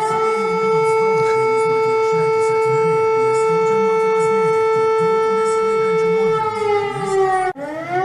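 Lithuanian emergency alert siren, a civil-defence siren holding one steady wailing pitch. Its pitch sags slightly at about six and a half seconds, it cuts off a second later, and it starts rising again near the end. A voice speaks faintly underneath it.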